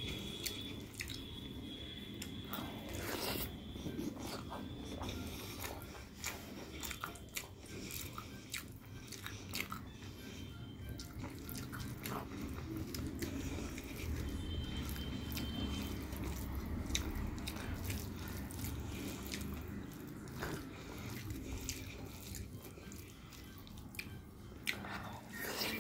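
Close-miked eating: chewing and mouth sounds with many small clicks and crunches, and fingers mixing soft rice on a plate.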